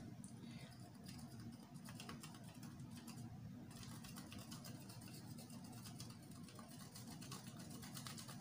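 Faint, quick scraping strokes of a chocolate bar rubbed across a metal grater, shavings falling, with a short break a little after three seconds in.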